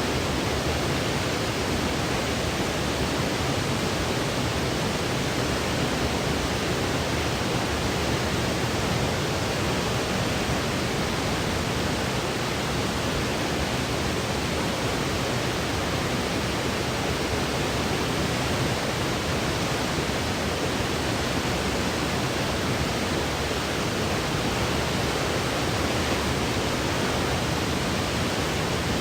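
Steady white noise played as a sleep sound: an even, unchanging hiss with no rhythm or events.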